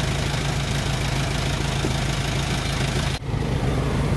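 A small engine running steadily with a low hum, broken once by a brief drop a little past three seconds in.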